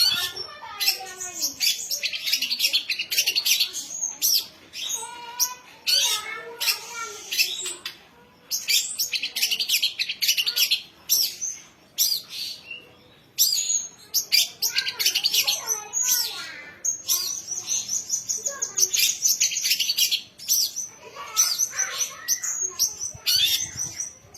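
Young white-rumped shama singing a varied song: rapid high trills and chatter mixed with lower gliding whistles, in phrases broken by short pauses.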